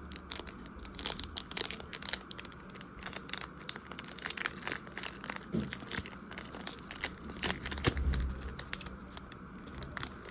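Foil wrapper of a Pokémon trading-card booster pack crinkling and tearing in the hands, a dense run of irregular crackles as the opened pack is handled and the cards are drawn out.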